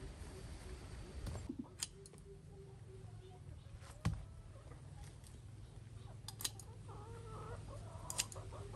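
A low steady hum with a few sharp clicks, the strongest about four seconds in, and faint wavering bird calls in the last two seconds.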